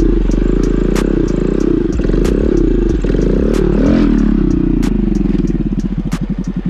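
Motorcycle engine under throttle during a wheelie, its pitch swinging up and down as the rider works the throttle, then dropping to a low, slow putter about five seconds in as the bike rolls off.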